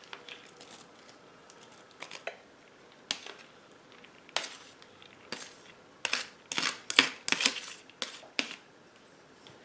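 A metal spoon clinking and scraping against a pot in scattered short knocks as rice is added to boiling stock. The knocks come more often in the second half.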